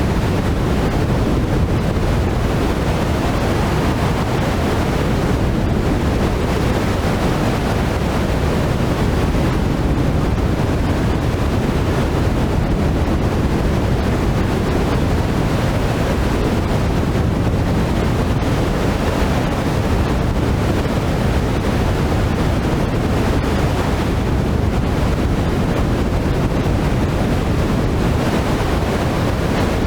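Wind blowing steadily through forest trees: an even rushing noise, heaviest in the low end, with slow gentle swells and no breaks.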